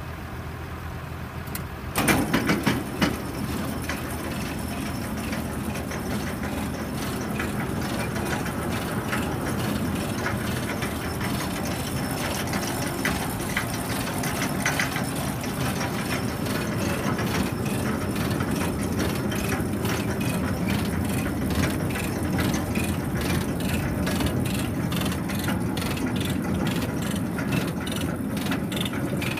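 New Holland 325 manure spreader driven off a running tractor's PTO. A few loud clunks about two seconds in, then the apron chain and beaters clatter and click steadily over the engine's hum.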